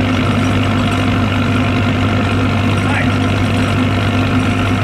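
An engine idling steadily, a constant low drone, with faint voices in the background.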